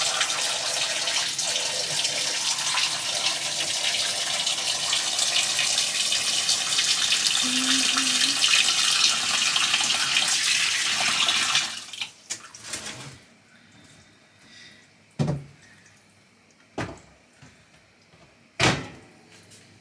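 Water running from a kitchen tap into a pot of chicken bones, a steady rushing that stops abruptly about twelve seconds in as the tap is shut off. A few short knocks follow.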